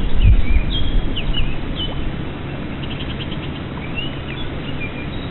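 Songbirds chirping and whistling, with a quick trill of repeated notes about three seconds in. A low rumble on the microphone is loudest in the first second or so, then settles.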